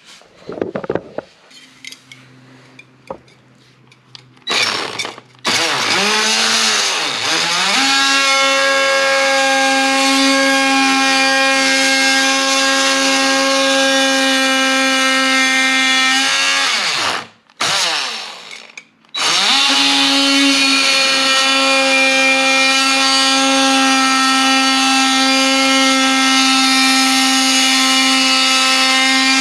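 Oscillating multi-tool cutting along the bottom of a wooden baseboard. After a few light knocks it starts about five seconds in, rising in pitch to a steady whine. Near two-thirds of the way through it winds down and stops for about two seconds, then starts again and runs on.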